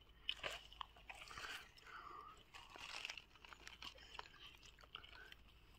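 Faint chewing and crunching of ripe fruit being eaten, with scattered small clicks.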